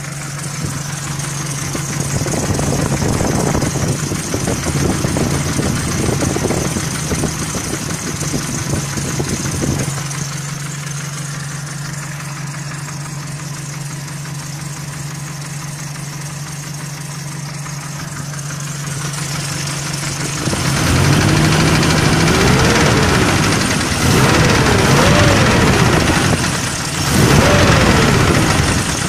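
GAZelle's ZMZ-405 petrol inline-four engine running with a knock (стук): steady idle for about twenty seconds, then revved up and back down three or four times.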